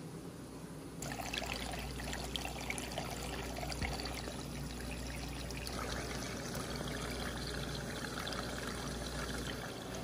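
Water pouring and trickling into an aquarium, splashing steadily across the surface with small drips and gurgles; it grows louder about a second in.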